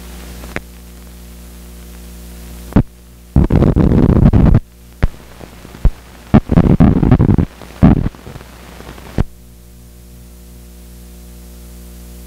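Steady hum from a 16mm film's sound playback as blank tail leader runs through, broken between about three and nine seconds in by several loud crackling bursts and a few sharp single pops.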